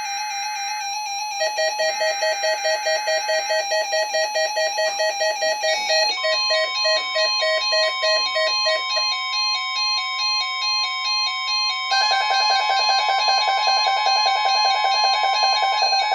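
Several weather-alert radios going off together for a Required Weekly Test. Short data bursts of the alert header come first, under a radio's pulsing beeping alarm. About six seconds in, the steady NOAA Weather Radio alert tone starts beneath the beeping, and about twelve seconds in another radio's faster beeping alarm joins.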